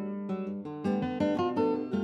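Background music of plucked acoustic guitar, a gentle melody of picked notes.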